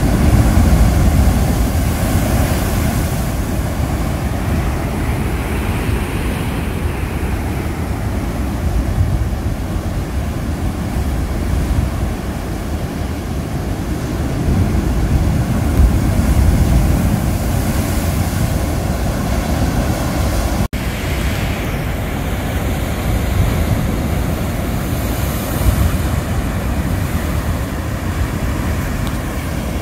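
Ocean surf breaking on a rocky lava shoreline: a continuous rushing wash that swells each time a wave breaks, with a deep wind rumble on the microphone. The sound drops out for an instant about two-thirds of the way through.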